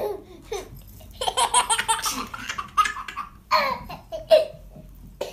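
A baby laughing in several high-pitched bursts of giggles and belly laughs, the longest run starting about a second in.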